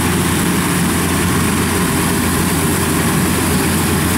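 Kubota DC-93 combine harvester running steadily as it harvests rice, its engine and cutting and threshing machinery making a continuous, even drone with a low hum underneath.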